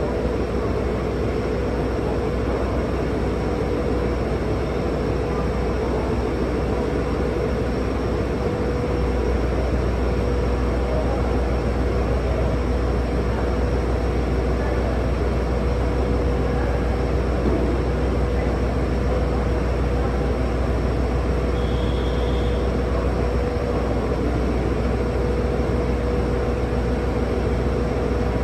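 A JR Hokkaido H100 DECMO diesel-electric railcar's engine idling steadily while the railcar stands at the platform, a constant low rumble with a steady hum.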